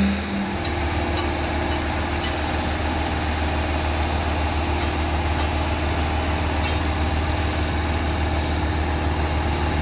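Engine of a concrete pump truck running steadily, a low even hum, with a few faint light clicks in the first few seconds.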